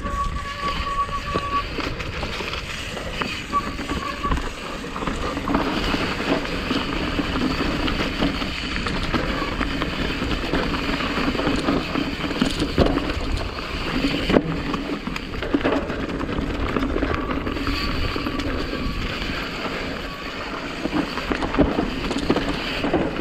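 Mountain bike ridden down a dirt trail, heard from a camera on the bike: steady wind and tyre noise with frequent rattles and knocks over bumps.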